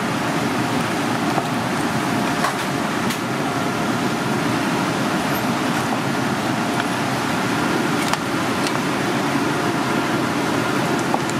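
Steady rushing noise of kitchen ventilation, with a few faint knocks as a cleaver cuts through plastic-wrapped food tubes on a wooden cutting board.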